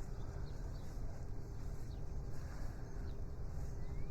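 Faint, brief bird chirps over a low, uneven rumble on the microphone and a faint steady hum.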